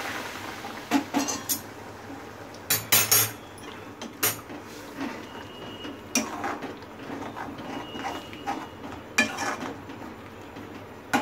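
Metal spoon stirring a runny rajma curry in a metal kadhai, clinking and scraping against the pan at irregular intervals, often two or three clinks in quick succession.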